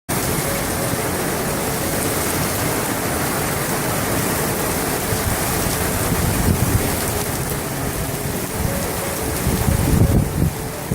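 Heavy rain pouring steadily, with low rumbles about six and ten seconds in.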